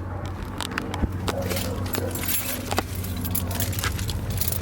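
Car keys jangling, with scattered sharp clicks, over a steady low hum.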